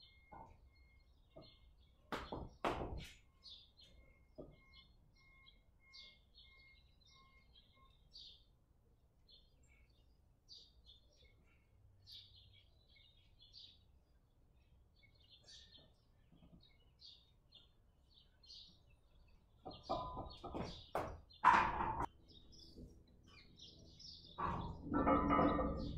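Birds chirping in the background, with a few knocks early on and louder clanks about three-quarters of the way through, likely from the loaded barbell and plates in the power rack. Near the end a louder, denser noise takes over.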